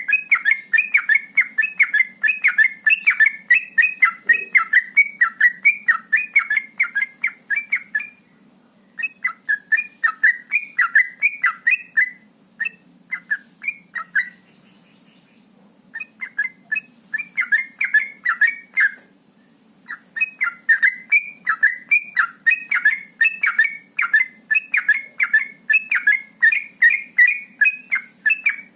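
Yellow-vented bulbul singing its fast continuous 'ropel' song: rapid bubbly whistled notes, about four a second, in long runs. The runs break off briefly about a third of the way in, thin to a few single notes for a few seconds, then pick up again and run on to the end.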